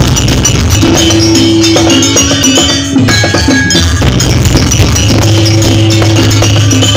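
Gamelan ensemble playing busy dance music: rapid strikes on tuned metal keys and drums over held ringing tones and a deep steady hum.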